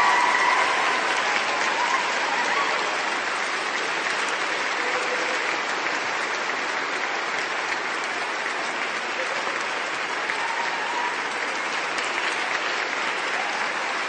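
A large audience applauding: dense, continuous clapping from many hands, a little louder in the first couple of seconds and then steady.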